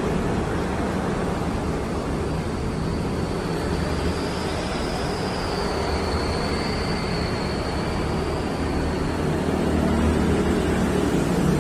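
A machine running steadily: a low hum under an even rushing noise, with a faint high whistle that wavers in pitch through the middle.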